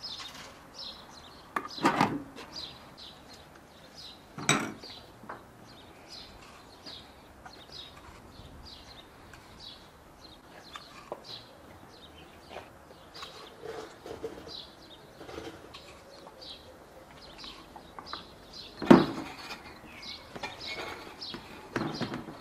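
Small birds chirping steadily in the background. Three sharp knocks break through: one about two seconds in, another a couple of seconds later, and the loudest near the end.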